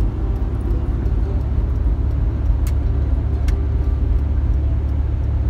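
Steady low rumble of road and engine noise inside a moving car's cabin, with two light clicks around the middle.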